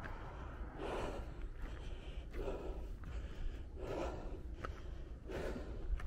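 A hiker breathing hard on an uphill climb, one heavy breath about every second and a half.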